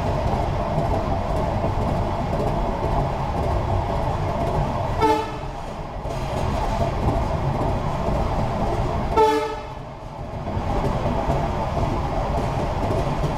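Railway coach wheels running on the rails with steady rolling noise, broken twice by short train horn blasts, about five and nine seconds in.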